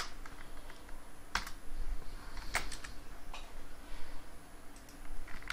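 Computer keyboard typing: a handful of separate keystrokes with pauses between them.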